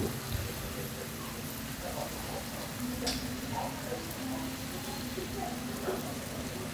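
Seafood and meat sizzling on a hot tabletop griddle, a steady rain-like hiss with a low hum underneath. A sharp light click, like chopsticks on a dish, about three seconds in.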